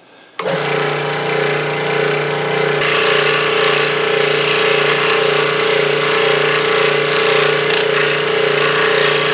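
Ryobi SC160 scroll saw running, its blade cutting a small piece of wood with a steady hum. The sound comes in suddenly about half a second in, and the cutting hiss grows louder about three seconds in.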